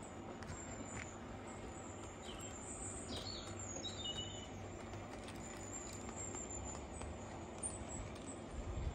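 LGB garden-scale model diesel locomotive running along the track with a steady low hum and wheel noise as it pulls its log wagons, while birds chirp a few times about two to four seconds in.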